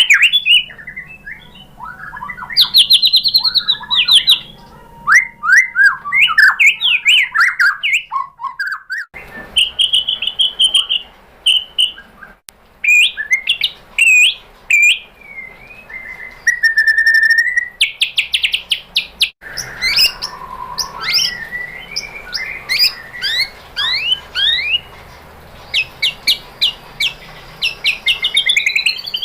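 White-rumped shama singing a loud, varied song of clear whistles, rapid trills, rising and falling slurs and sharp chattering notes. The song breaks off abruptly twice and picks up again.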